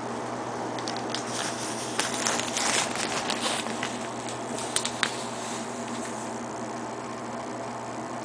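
Shower curtains rustling in short bursts as they are pushed aside, with a few sharp clicks about five seconds in, over a steady low hum.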